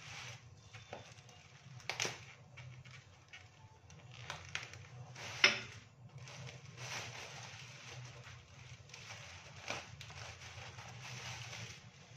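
Thin plastic carrier bag and wrapping rustling and crinkling as a package is worked out of the bag by hand, in irregular crackles with one sharp crackle about five and a half seconds in.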